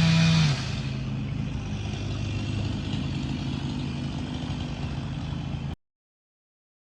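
A steady engine-like hum that drops to a quieter, rougher rumble about half a second in, then cuts off suddenly near the end.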